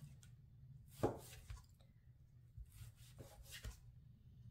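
Chef's knife slicing through cooked beef and tapping down on a plastic cutting board: a few separate strokes, the loudest about a second in and a quick cluster of three or four around three seconds in, over a faint low steady hum.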